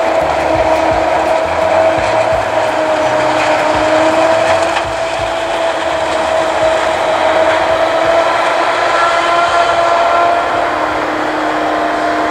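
Claas Jaguar 980 self-propelled forage harvester chopping maize, a steady machine drone with a high whine that wavers slightly in pitch. The tractor and trailer running alongside it blend into the drone.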